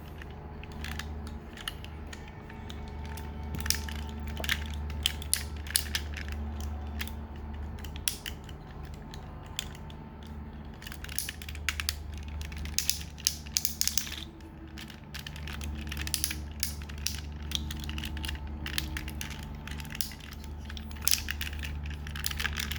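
Plastic parts of a Transformers Masterpiece MP-30 Ratchet action figure clicking and snapping repeatedly as it is handled and manipulated, over a low steady hum.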